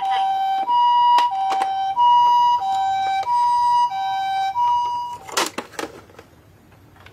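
A toy ambulance's electronic siren plays a two-tone hi-lo wail, alternating high and low notes about every 0.6 s, and stops about five seconds in. Sharp clicks run through it, with a cluster of louder knocks just after it stops, as the plastic toy is handled.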